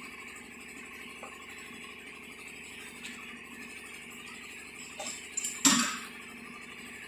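Steady background hum with a few light clicks, then one sharp clank with a brief high ring about five and a half seconds in.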